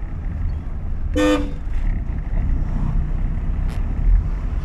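A single short vehicle horn toot, about half a second long, over the steady low rumble of a car driving on the road, with a low thud near the end.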